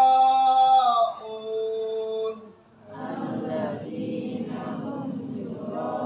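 Quranic recitation (tadarus) chanted aloud: one voice holds long, drawn-out notes, then about three seconds in a large group of students recites together in unison.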